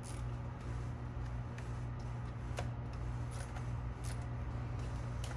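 Faint, irregular clicks and taps of hand tools working the fuel rail's Torx bolts, over a steady low hum.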